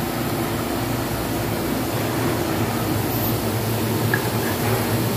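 Steady hiss from a gas stove with fish frying in oil in a pan, the lit burners running underneath.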